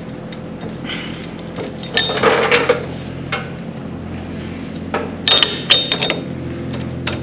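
Hand tools clinking and knocking against metal motorcycle parts while the brake pedal is bolted on, in a few short clusters about two seconds in and again around five seconds in, over a low steady hum.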